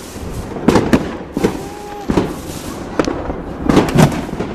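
Fireworks going off: a string of sharp bangs, about seven in a few seconds at uneven spacing, some in quick pairs.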